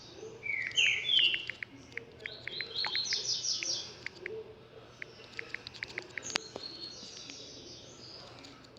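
Small birds chirping, with a pair of quick rising chirps about a second in and a fast trill around three seconds in, among many short ticking notes.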